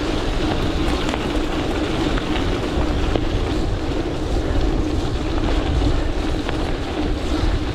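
Wind buffeting the microphone over the steady rumble of gravel-bike tyres rolling along a trail, with scattered faint ticks from grit.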